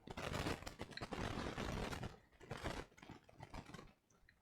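Small plastic building-brick pieces clicking and rattling as they are handled. There is a dense clatter for about two seconds, then a few scattered clicks.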